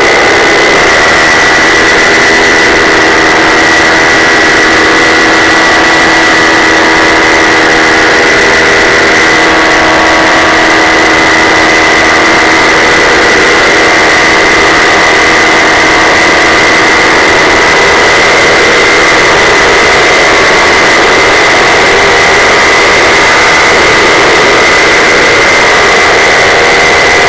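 Paramotor engine and propeller running steadily in flight: a loud, constant drone with a steady high whine on top.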